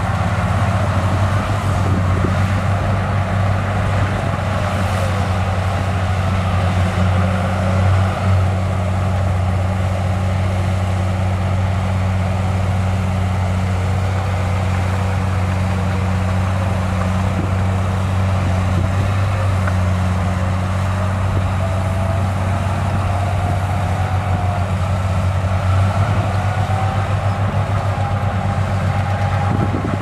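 Diesel engine of a Komatsu crawler bulldozer running steadily, a deep constant drone with a faint whine that rises and falls in pitch.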